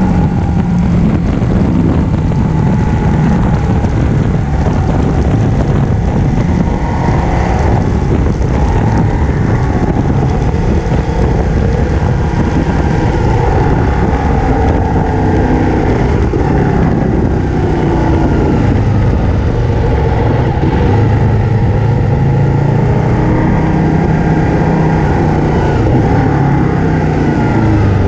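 Ducati 1299 Panigale's 1285 cc Superquadro L-twin running on the move as the bike slows from highway speed to a crawl. The engine note falls in pitch as road speed drops, over a steady rush of wind and road noise.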